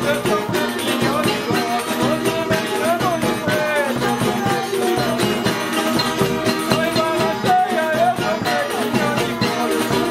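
Live acoustic folk music: strummed string instruments keep a steady rhythm while a bowed fiddle plays a wavering melody over them.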